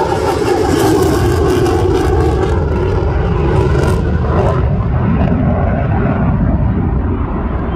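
Jet noise from a single-engine F-16 fighter flying a distant display pass: a loud, steady rumble. The upper hiss thins out about halfway through.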